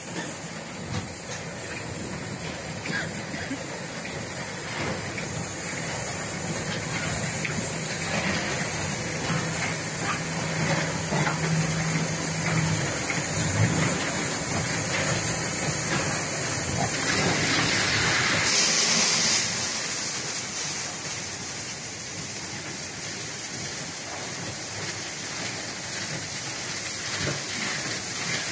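Concrete batching plant machinery running: a steady mechanical din with hissing. A low hum sounds through the first half, and a sharper, louder hiss comes about two-thirds of the way through.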